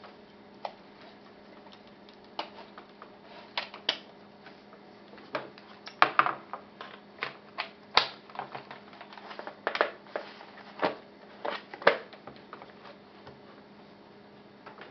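Polaroid 320 instant camera being folded shut by hand: an irregular run of clicks, snaps and knocks as the lens board and bellows are pushed back into the body and the plastic front cover is closed over them. The loudest knocks come about six, eight and twelve seconds in.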